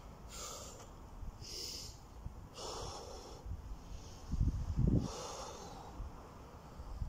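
A man breathing hard after a run of burpees: four heavy, noisy breaths, one after another. The loudest sound is a low thudding just before the last breath, about four and a half seconds in.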